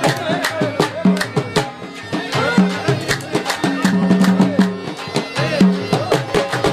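Saraiki folk instrumental music ('saz'): quick hand-drum strikes under a bending, ornamented melody line, with a low note held again and again beneath.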